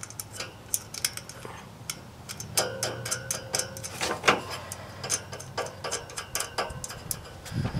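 Irregular small metallic clicks and ticks as hex nuts are hand-threaded onto an A/C condenser fan motor's mounting studs against its steel wire grille, some clicks briefly ringing.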